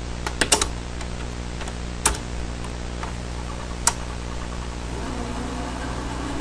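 A steady low hum with several sharp clicks: a quick cluster about half a second in, then single clicks near two seconds and near four seconds.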